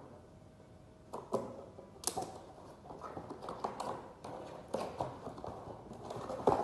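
Irregular clicks and crinkles of a toy's plastic packaging being handled and pried at by hand, with a sharper snap near the end.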